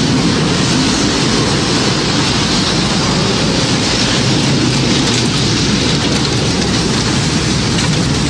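Tornado storm sound effect: a steady, loud rushing of wind and heavy rain, with a deep rumble underneath and no rise or fall.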